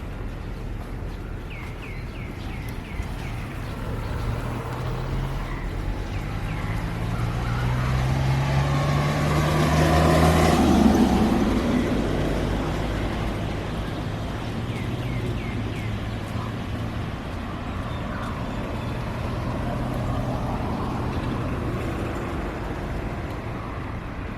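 A motor vehicle drives past: its engine grows louder, is loudest about ten seconds in, then fades away over a steady hiss of rain. Short bird chirps come in briefly twice.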